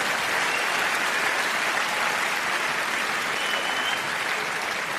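A large audience applauding, with steady dense clapping that eases off slightly near the end.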